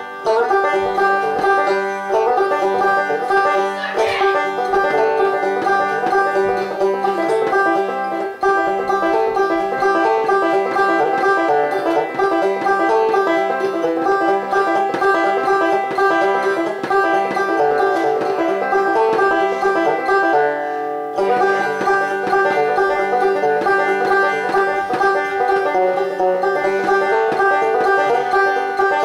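Epiphone banjo played solo, a steady stream of quick picked notes. The picking thins out for a moment about twenty seconds in, then carries on.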